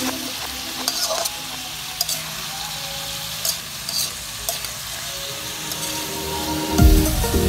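Vegetables and green pepper sizzling as they stir-fry in a wok, with a metal spatula scraping and clicking against the pan now and then. Music with a heavy beat comes in suddenly near the end.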